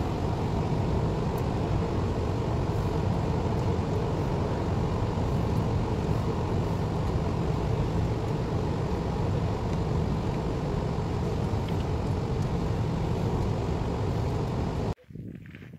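Steady low rumble of road and engine noise heard from inside a moving car. It cuts off suddenly near the end, leaving only faint outdoor sound.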